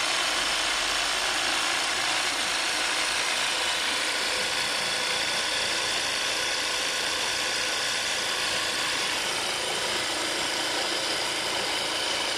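Homemade 12-volt water pump, driven by an old motorcycle starter motor, running steadily, with water gushing out of the discharge pipe and splashing onto wet ground.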